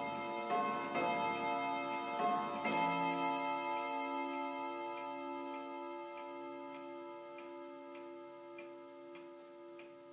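A chord of several ringing tones that shifts a few times in the first three seconds, then holds and fades slowly, over a faint steady ticking about every 0.7 s.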